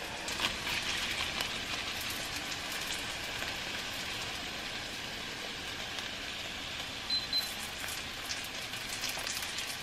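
Chicken frying in a pan with a steady, even sizzle; the chicken is cooking hot enough to burn on one side.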